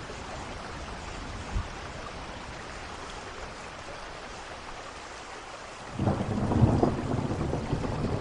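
Steady rain falling. About six seconds in, a loud rumble of thunder breaks in and keeps rolling.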